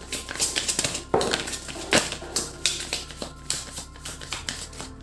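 A deck of tarot cards being shuffled by hand: a run of quick, irregular crisp clicks and slaps of cards.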